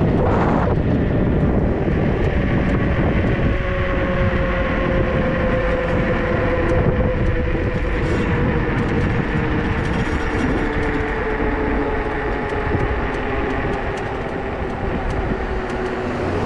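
48 V, 3000 W electric dirt bike motor whining at speed under heavy wind and road noise, its whine falling slowly in pitch as the bike slows.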